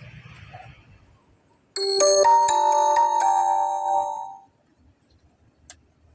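A short chime melody of several bell-like notes stepping in pitch, lasting about two and a half seconds, then a faint click near the end.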